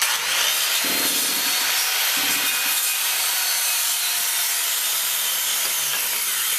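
Power saw cutting steadily through wood, likely a deck post or board.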